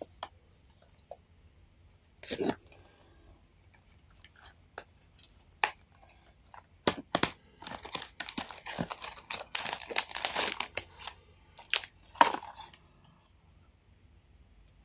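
Blind-box toy packaging being opened by hand: paper and cardboard rustle in scattered sharp bursts, then a dense run of crinkling and tearing as the silvery inner wrapper is pulled open, ending in one sharp crackle.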